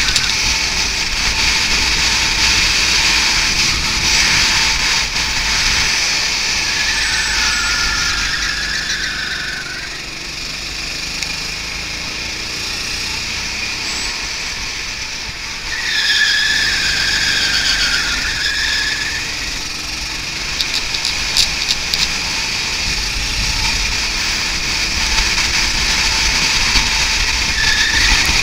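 Go-kart engine running at racing speed with wind noise, heard from on board. The tyres squeal through corners, twice: about a quarter of the way in and again a little past the middle.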